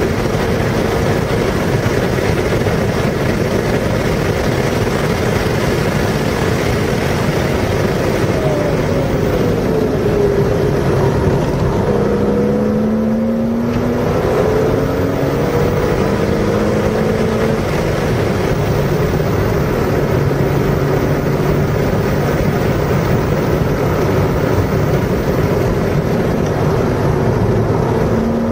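Car engine under load on a racetrack lap, its pitch falling and then climbing repeatedly as it is driven through braking and gear changes, beneath heavy, steady wind and road noise.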